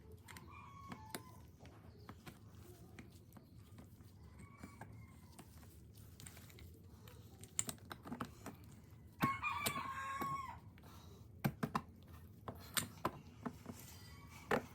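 A rooster crowing: fainter calls early on and one louder crow about nine seconds in, with scattered small clicks and knocks throughout.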